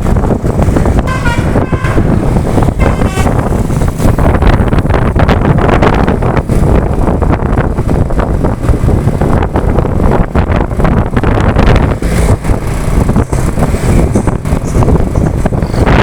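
A bus's Basuri telolet musical air horn plays a quick run of notes about a second in and again around three seconds, over a heavy rumble of wind on the microphone and road noise from moving along with the bus.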